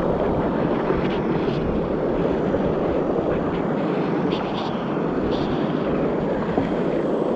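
Steady rush of fast-flowing stream water over rocks, with a few faint light ticks.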